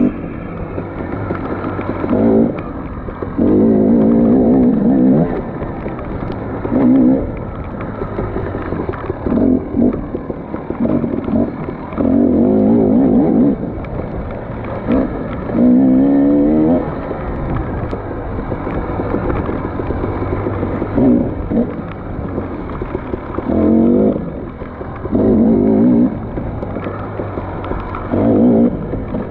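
Off-road dirt bike engine run hard in a dozen or so short bursts of throttle a second or two apart, dropping back to a lower, steadier note between them.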